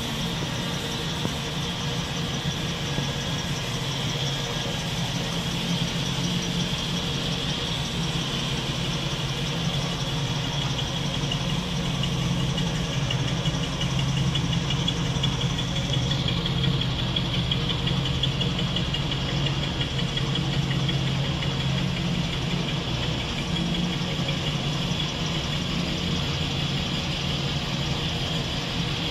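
1969 Chevrolet Camaro SS 396 clone's V8 engine idling steadily.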